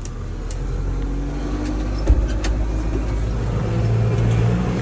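A Kubota L-series tractor's diesel engine runs as the tractor drives off, its note rising about three and a half seconds in. There is one sharp knock about two seconds in, and a few light clicks.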